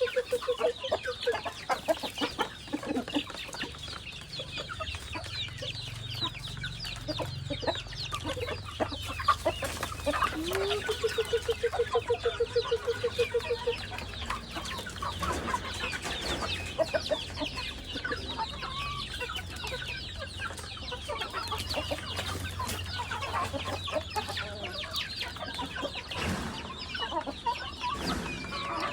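Chickens clucking and calling, many short calls overlapping, with a drawn-out pulsed call from one bird at the very start and again for about three seconds some ten seconds in.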